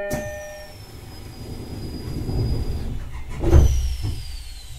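Inside a Shinano Railway SR1 series electric train as it starts away: a thump as the doors shut while the last notes of the door chime fade, then a high whine from the traction equipment gliding down in pitch over a building rumble. A loud thump about three and a half seconds in, and a second high whine that also falls in pitch.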